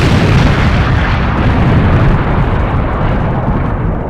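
Explosion sound effect: a long rumble that fades slowly.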